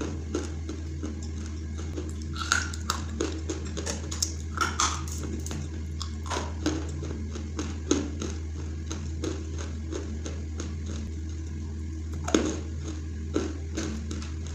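Dry lumps of Hyderabadi khadi (edible white clay) being bitten and chewed, giving irregular sharp crunches and cracks, a few of them louder, over a steady low hum.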